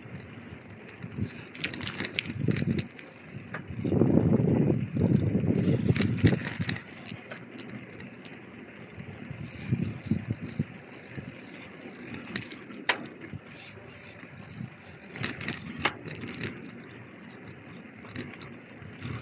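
Bicycle being ridden, rattling and clicking as it rolls, with a louder rumble from about four to seven seconds in.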